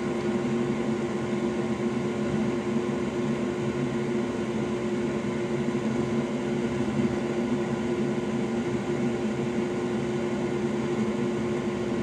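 Steady hum of an electric fan-driven machine running, with a fixed tone over even airy noise.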